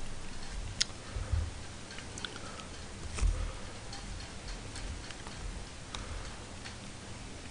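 Wooden chopsticks clicking irregularly against a plastic lunchbox tray while picking up shredded cabbage, with soft low thumps in between, the loudest about three seconds in.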